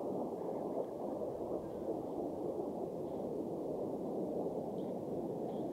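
Steady, muffled noise of a group of racing jet aircraft flying far off, heard as a dull roar with little high end.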